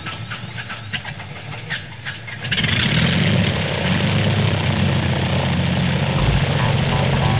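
Light aircraft piston engine starting: irregular clicking and knocking while it cranks, then about two and a half seconds in it catches and runs steadily and much louder.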